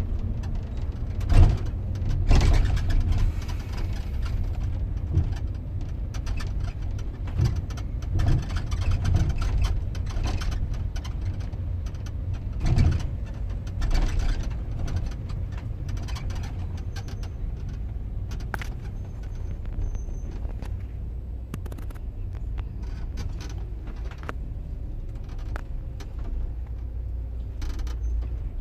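Moving bus heard from on board: a steady low engine and road rumble, with occasional knocks and rattles from the bus body, the loudest about a second and a half in.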